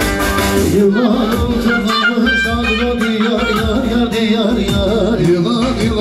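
Loud amplified folk dance music for a line dance. A singing voice comes in about a second in over the instruments and a steady low beat.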